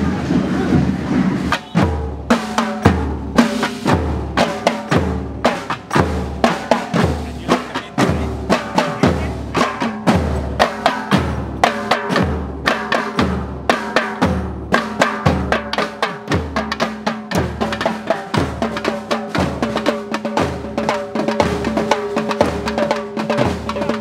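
A group of snare and tom drums played together with sticks in a fast, loud rhythm, starting about two seconds in, with a deep beat falling about once a second. A steady held tone runs underneath the drumming.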